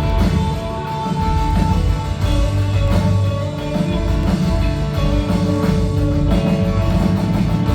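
Instrumental worship band music: guitars and a drum kit playing with a steady beat and held chords.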